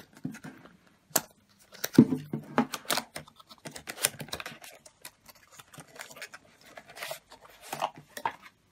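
Small cardboard box being opened by hand: an irregular run of scrapes, clicks and rustles as the flap is pulled back and the contents are slid out.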